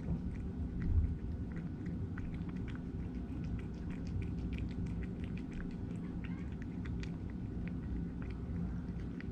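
A cat eating, its chewing heard as quick irregular crunching clicks over a steady low hum.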